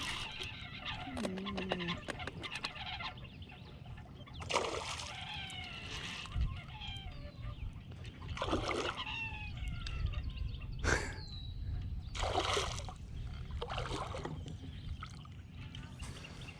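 Water splashing in short bursts about five times, a hooked largemouth bass thrashing at the surface during the fight, with birds calling in between.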